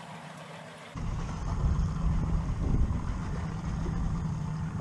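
Boat's outboard motor running low, a steady low hum under rough rumbling wind and water noise. It turns suddenly louder and rougher about a second in.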